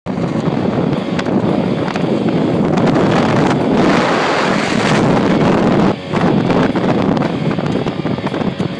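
Heavy wind rush buffeting the microphone aboard a powerboat running at speed, mixed with water rushing past the hull. The noise dips briefly about six seconds in.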